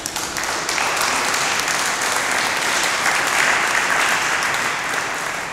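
Audience applauding: the clapping builds over the first few seconds and fades near the end.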